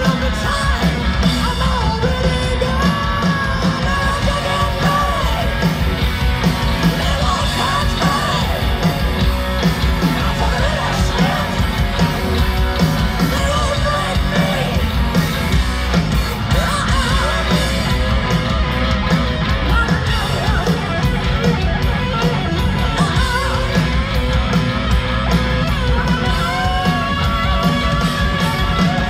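Live hard rock band playing: distorted electric guitars, bass guitar and drums under a sung lead vocal, recorded from the audience at a large concert.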